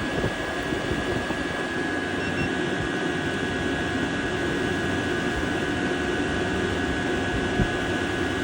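Diesel air heater running: a steady blower roar with a thin, steady high whine through it.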